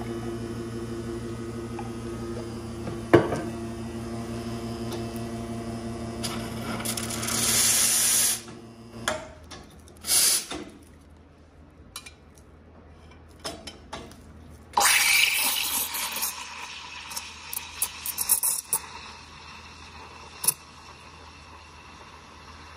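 Espresso machine steam wand: two short bursts of hissing, then from about halfway a loud hiss that settles into a steadier hiss with scattered crackles as it steams milk in a stainless steel pitcher. A sharp clank about three seconds in.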